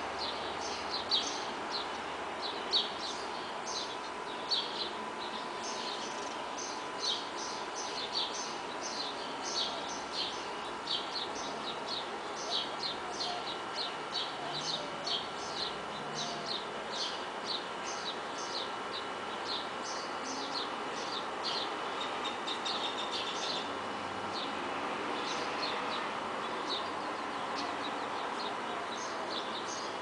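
Songbirds chirping in quick, short, repeated notes, several a second, thinning out near the end, over a steady hum of distant traffic.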